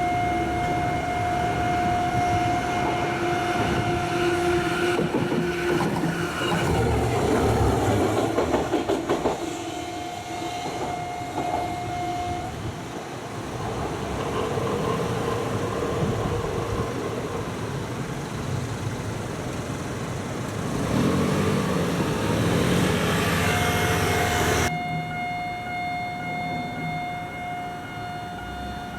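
Level-crossing alarm ringing with a steady repeating electronic tone while a train clatters over the crossing. The alarm stops about halfway through. Near the end another train passes and the alarm starts again.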